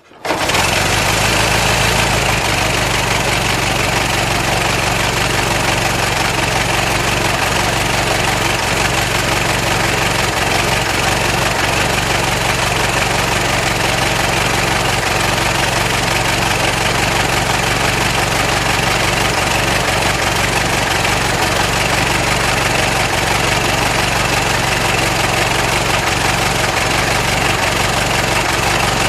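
Old car engine idling steadily.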